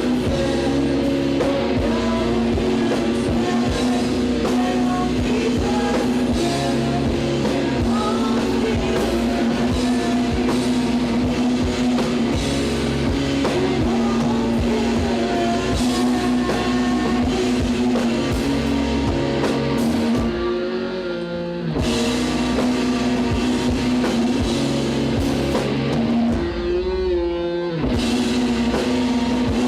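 Live rock band playing, with drum kit and guitar driving a steady groove. Twice, about two-thirds of the way through and again near the end, the drums drop out for about a second, leaving a wavering held guitar note.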